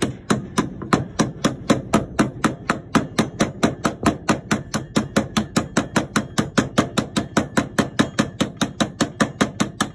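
Ball-peen hammer tapping the outer race of a 6205 sealed steel ball bearing into a mower blade spindle housing, about five quick, even taps a second throughout. The bearing is being started and driven down the bore, not yet seated against its step.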